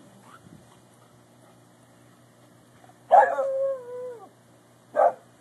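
Dogs at play: one gives a long, drawn-out bark-whine about three seconds in, holding its pitch and then sliding down, followed by a single short bark near the end.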